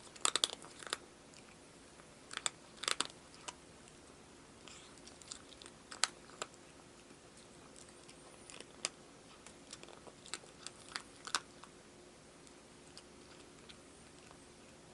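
A cat eating, with irregular clusters of sharp, crunchy clicks as it chews its food.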